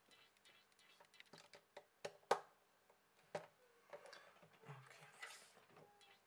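Scattered small clicks and taps of a precision screwdriver and the phone's plastic parts being handled on a workbench, with the sharpest click about two seconds in.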